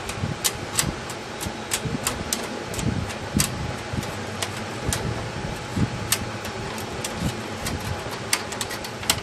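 Short, sharp, irregular clicks, a few a second, from a screwdriver working the pressure-release mechanism of a Xerox fuser unit to free the heat roll, over steady background noise.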